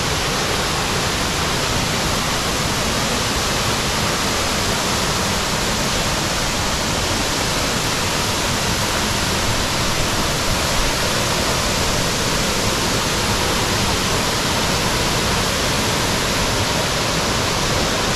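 Waterfall pouring into its plunge pool: a steady, even rush of falling water.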